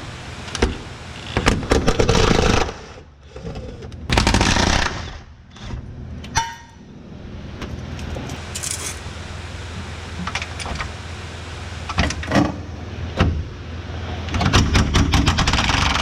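Metal clanking, rattling and scraping from tools and car parts, in several loud clattering bursts with sharp clicks, while the rear subframe is being supported under the car.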